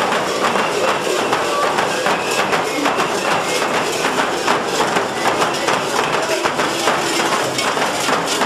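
Large frame drums, a whole troupe of them, beaten with sticks in a dense, fast, continuous beat, with crowd voices mixed in.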